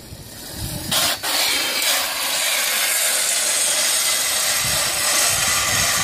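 Home-made steel wheelie bar of a Razor mini dirt bike scraping along asphalt as the bike is ridden: a steady, harsh rasp that starts about a second in. The dragging has worn the bar's round tubing flat.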